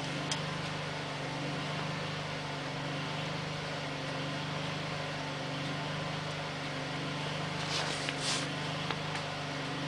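A steady low mechanical hum with a faint hiss, and a couple of faint ticks about eight seconds in.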